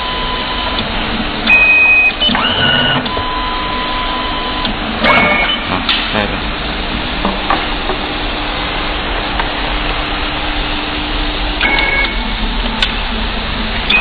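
WPM-29 programmable coaxial cable stripping machine running a strip cycle: a steady motor hum, broken by short whirring moves of the stripping head about two seconds in, about five seconds in and again near the end.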